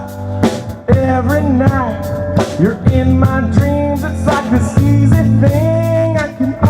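Live blues-rock band playing: electric guitar, bass guitar and drum kit, with bending melodic lines over a steady low end and regular drum hits.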